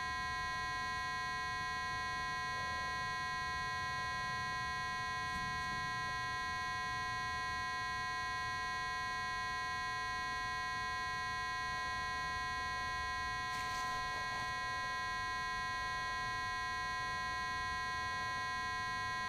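A steady electronic buzz made of several fixed tones, unchanging in level, with faint rustling of soil being crumbled by hand.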